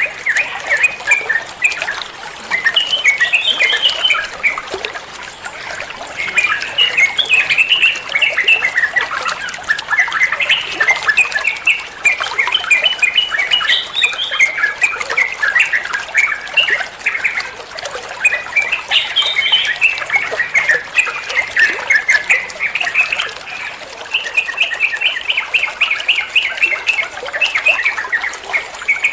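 Yellow-vented bulbul (trucukan) singing fast chattering 'ropel' phrases, each lasting a few seconds with short pauses between them.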